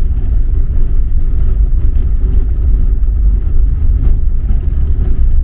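Steady low rumble of a Volkswagen Kombi van driving, engine and road noise heard from inside the vehicle.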